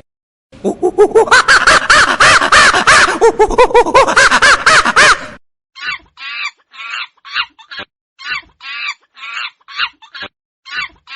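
Monkey calls: about five seconds of loud, rapid chattering, then a slower series of short, sharp calls, about two a second.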